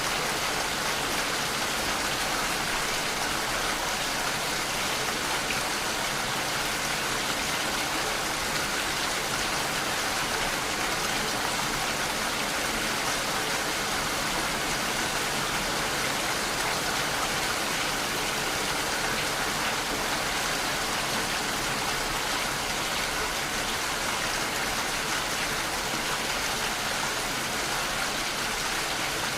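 Steady rain falling, an even hiss of drops on a surface with no change in strength throughout.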